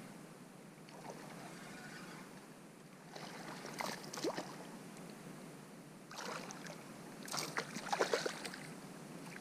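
Hooked fish splashing and thrashing at the water's surface beside the boat as it is brought in and landed by hand, in two bouts of splashing, the second longer and louder.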